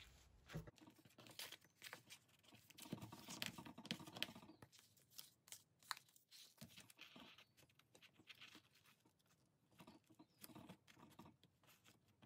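Faint rustling and scattered light taps of paper and card being handled: a folded designer-paper envelope with its pocket inserts and ribbon being moved about.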